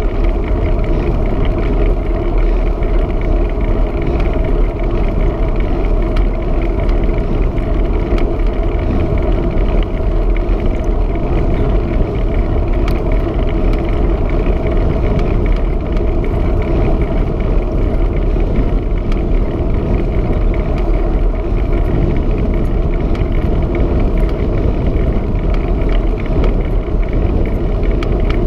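Steady wind noise buffeting a bike-mounted camera's microphone, over the rumble of bicycle tyres rolling on a tarmac road while riding at speed.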